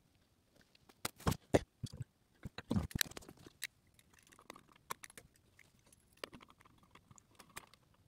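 Irregular clicks, taps and crunching handling noises from hands working on the wiring and motor housing of a disassembled Hunter Reverse Aire ceiling fan. The sharpest knocks come a little over a second in and around three seconds in.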